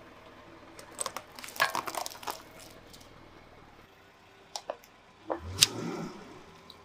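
A car tyre crushing small objects on asphalt: a rapid run of crackles and snaps about a second in as wire baskets of beads are flattened, then a couple of clicks and, near the end, a loud crunch with a low thud as a cardboard box of gel water beads is crushed and bursts open.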